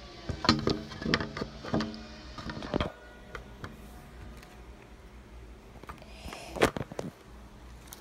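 Handling noise of a phone held close to its microphone: a quick run of knocks and rubbing as it is picked up from the floor, then quieter fumbling with one sharp knock about two-thirds of the way through.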